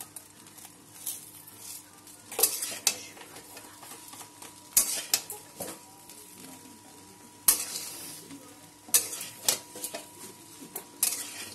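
Spatula scraping and knocking against a steel kadai as fried rice is stirred and turned, about ten sharp strokes at uneven intervals over a faint sizzle of frying.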